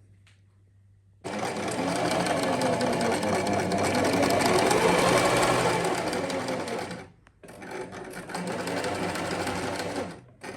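Second-hand electric domestic sewing machine running as it stitches. It starts about a second in, stops briefly around seven seconds, runs again, and pauses just before the end.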